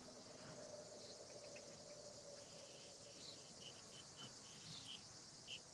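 Faint, steady insect chirring, with a few short high chirps in the second half.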